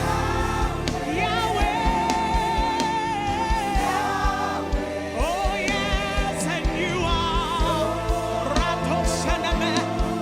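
Live gospel worship music: singers with vibrato over a band with a steady drum beat.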